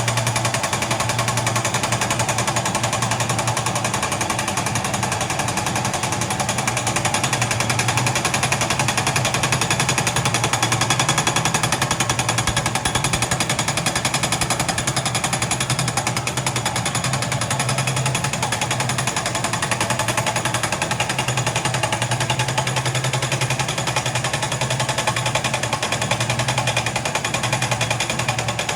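Hydraulic breaker hammer on a backhoe loader pounding continuously: rapid, steady hammering without a break, over a steady low hum.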